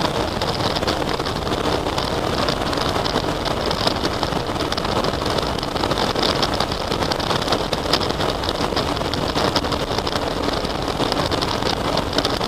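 Honda Pan-European ST1300 motorcycle's V4 engine running at a steady cruise under constant wind and road noise, as picked up by a camera mounted on the bike; a faint steady engine hum sits under the rush.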